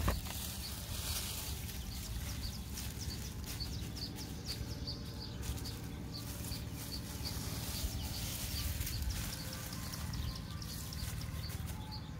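Outdoor ambience with a short high chirp repeating steadily, about three times a second, over a low rumble.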